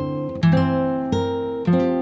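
Background music: acoustic guitar, with plucked notes starting about every half second and left to ring and fade.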